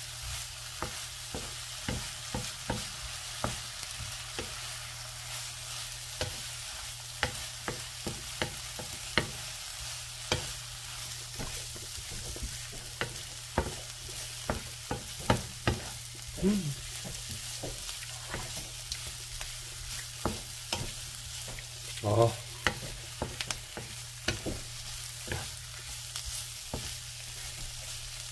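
Shiitake mushrooms, onion and carrot sizzling steadily as they are stir-fried in a nonstick frying pan, with a wooden spatula scraping and tapping the pan in irregular clicks over a steady low hum. A short, louder pitched sound cuts in about two-thirds of the way through.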